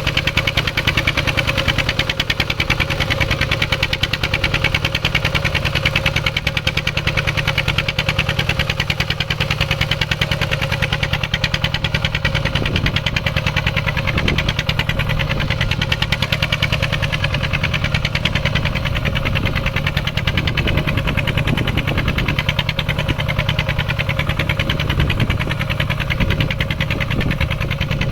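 Mini farm tractor's engine running steadily with a fast, even beat while plowing a field.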